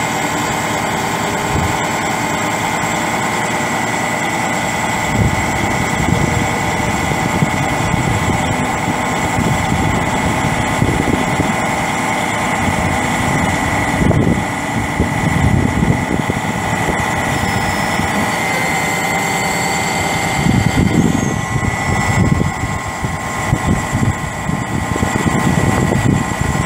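Diesel engine of a Western Star 4900SA truck running steadily while it drives the hydraulic Hiab knuckle-boom crane being raised, with a steady high whine over the engine and uneven low rumbling surges.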